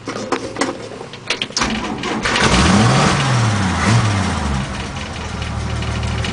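A few sharp clicks and knocks, then the hard-starting engine fires about a second and a half in on starter fluid. It revs up and down twice and settles into a steady idle.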